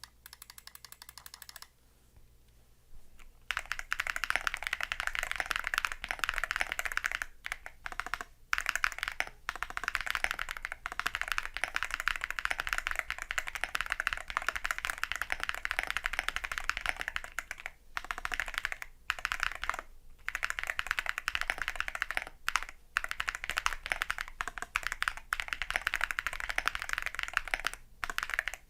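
Typing on a custom mechanical keyboard: a qwertkeys QK75 with a POM plate, gasket-mounted PCB, Geon Tecse Clear switches lubed with Krytox 205g0, and Geon Desko keycaps. A few quieter keystrokes come first, then dense, rapid typing begins about three and a half seconds in and runs on with a few brief pauses.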